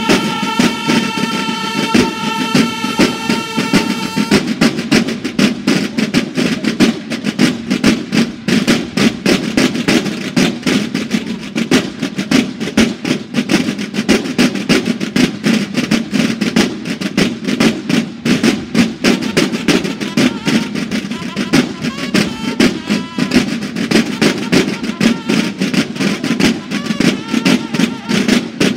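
A banda de guerra, a Mexican drum and bugle band, playing: the bugles hold a sustained chord for about the first four seconds, then the snare drums take over with a fast, dense drum routine.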